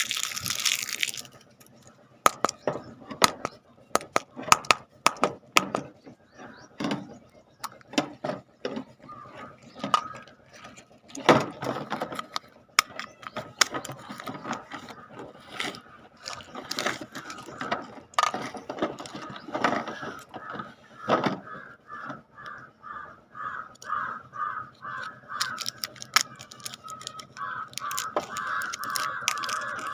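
Plastic candy toys being handled and opened: scattered clicks, knocks and rattles. A squeaky ratcheting sound grows in, pulsing about three times a second in the second half and running on steadily near the end.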